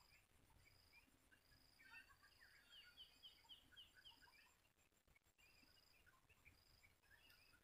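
Faint outdoor birdsong over near silence: scattered small chirps, a high note repeating about every two-thirds of a second, and a quick run of about six short notes near the middle.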